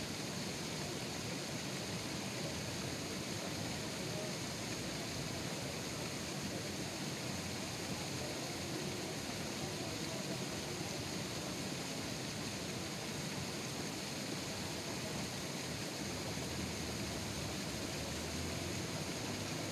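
Steady, even background noise at a constant level, with no distinct events.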